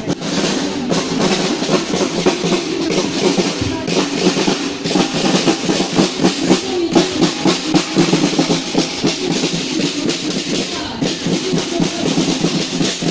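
Snare drums of a marching majorette drum corps playing a steady marching beat as the column passes close by.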